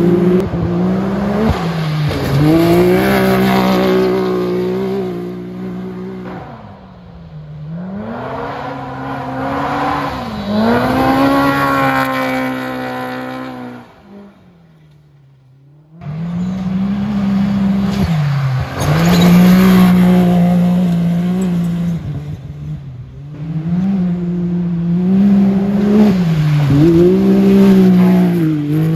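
Off-road race cars going by one after another on a dirt track. Their engines rev up and down as they pass, the pitch rising and falling with throttle and gear changes. The sound drops away briefly a little past halfway, then picks up again.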